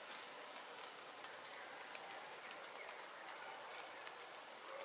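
Steady rain falling on forest foliage: an even hiss with scattered faint drip ticks.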